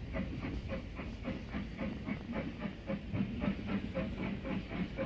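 Stroudley Terrier 0-6-0 tank engine working steam, its exhaust chuffing in a quick, even rhythm of about five beats a second over a steady running rumble.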